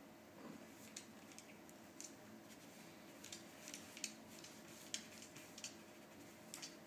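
Near silence in a small room, broken by soft, scattered clicks and rustles from two cats in a mating hold, one mounted on the other; the sharpest two clicks come about four and five seconds in.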